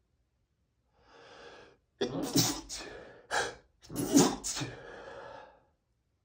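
A man's rapid sneezing fit: a breath in about a second in, then a quick run of sneezes, some held back and some let out, close together from about two seconds in.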